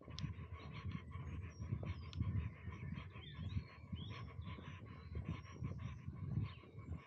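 Footsteps on a dry dirt track at walking pace, with birds chirping in the surrounding trees.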